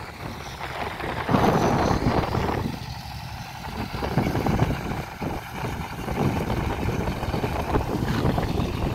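Wind buffeting the microphone in uneven gusts, a low rumbling rush that swells and drops.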